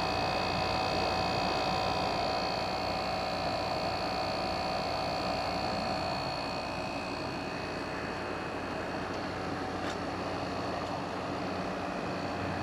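Frigidaire 12,000 BTU window air conditioner running, its GMCC rotary compressor and fan on low: a steady rush of air with a low hum and a few steady high tones. The compressor is a little loud, though nothing is wrong with it.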